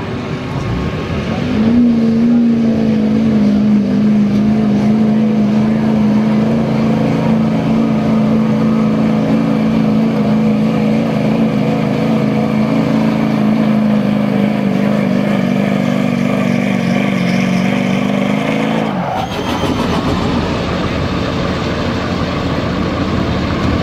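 GMC Sierra's Duramax turbodiesel V8 at full throttle, hauling a weight-transfer pulling sled. Its note holds steady for about seventeen seconds, sagging slightly as the load builds. Near the end the throttle is let off and the engine drops away.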